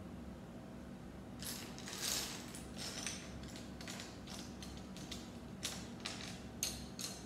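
Small plastic Lego pieces clicking and rattling as they are handled and fitted, a run of irregular short clicks starting about a second and a half in, over a faint steady hum.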